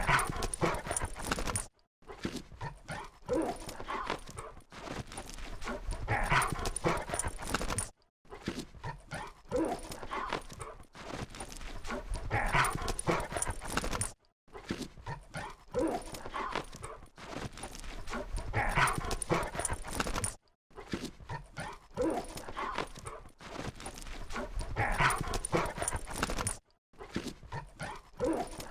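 Labrador retrievers playing: a busy mix of scuffling and tapping paws with small dog noises. The same roughly six-second stretch repeats, each time cut off by a brief silent gap.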